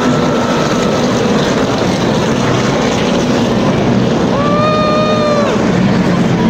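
A pack of NASCAR Sprint Cup stock cars with V8 engines passing at full throttle, a loud continuous engine noise. About four and a half seconds in, a held high-pitched tone rises over it for about a second.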